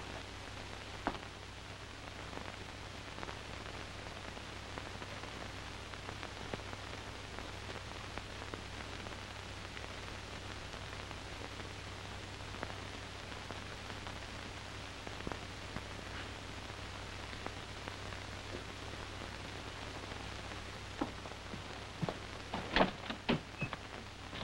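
Steady hiss and faint crackle of an old film soundtrack over a low hum, with a few sharp clatters near the end.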